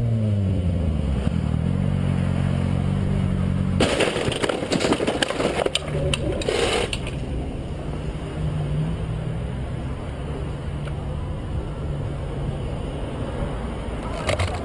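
Sport motorcycle engine running with its pitch falling as it slows, then a crash about four seconds in: three seconds of clattering, scraping impact noise as the bike goes down against a car. Afterwards an engine runs steadily at idle.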